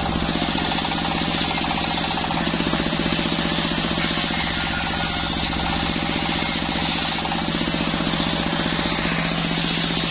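Machine-driven circular sawbench running steadily, with a constant hum and a fast mechanical pulsing.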